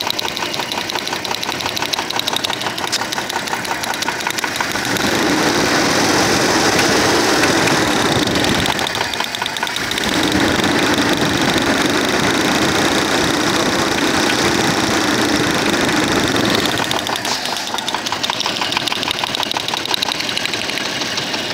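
1996 Audi A4's 2.6-litre six-cylinder petrol engine running with the spark-plug lead pulled from cylinder one, revved up and held twice, about 5 and 10 seconds in, then falling back to a lower speed. This is a cylinder-drop test for connecting-rod knock, which the owner traces to cylinder one.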